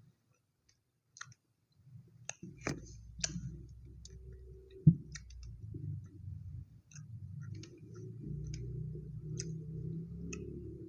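Close-miked eating of chocolate toast: chewing with repeated wet mouth clicks, and a single thump about five seconds in.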